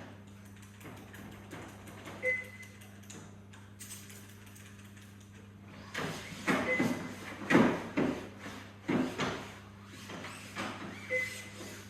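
Neonatal incubator and NICU equipment: a steady low hum, with a short electronic beep three times a few seconds apart. In the second half come handling noises, soft knocks and rubbing, the loudest knock near the middle.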